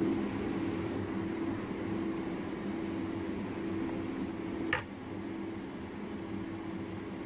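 Steady hum of a running fan with a low drone, and a single short tap about two-thirds of the way through.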